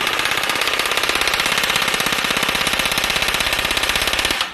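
Riveting machine hammering a red-hot steel rivet into a steel angle: a fast, even, metallic rattle of blows, many to the second, that stops suddenly near the end as the head is formed.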